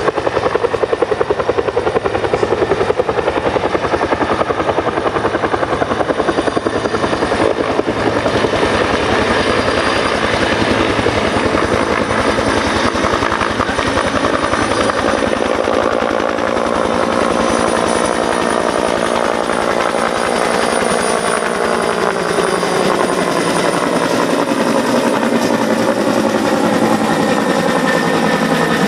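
Bell 212 helicopter flying with an underslung load: the steady, rapid chop of its two-bladed main rotor over a turbine whine. In the second half the whine's pitch slides as the helicopter comes close overhead.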